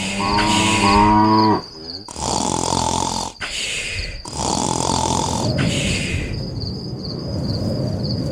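A cow mooing once, for about a second and a half, over a steady high pulsing chirp like crickets. The background noise changes abruptly at several cuts, and from about six seconds in it settles into a low, even rumble.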